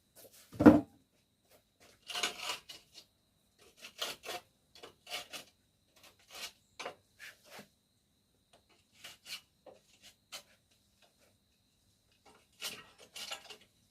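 Screwdriver scraping and poking out insect nests packed in a screen door's aluminium edge channels: short scrapes at irregular intervals, with a sharp knock about a second in.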